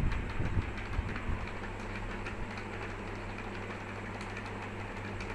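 Steady low hum over constant background noise, with a few low thumps in the first second and a half.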